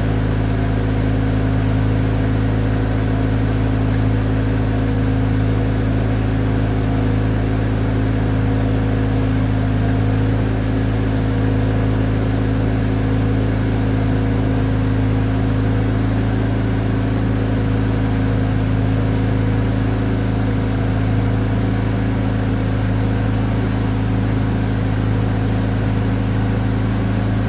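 Large forklift's engine running at a steady, even speed with a constant low hum and no revving, while it slowly shifts a heavy press brake.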